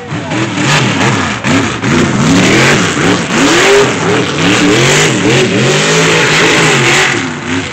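Mega truck's engine revving hard, rising and falling in pitch again and again as the truck spins its tyres and throws dirt during a freestyle run.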